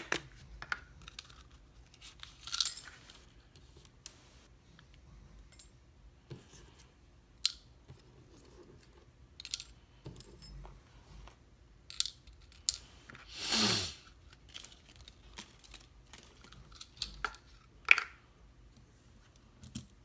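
Clear plastic shim cases being opened and handled: scattered sharp clicks and taps, with two short rustling scrapes, the louder one about two-thirds of the way through.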